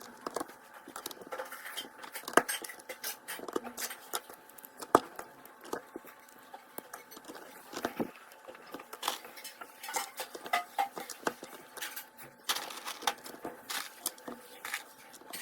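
Plastic Lego bricks being handled and snapped together: irregular small clicks and light clatter, busier for a moment about two thirds of the way through.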